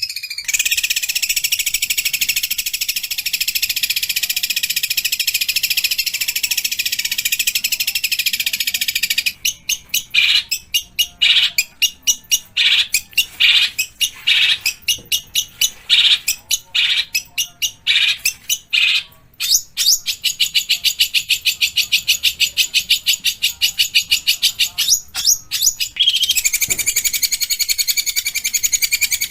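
Long-tailed shrike singing a harsh, chattering song. A continuous rasping chatter runs for about nine seconds, then gives way to sharp separate calls about two a second. A long fast rattling trill follows from around twenty seconds in.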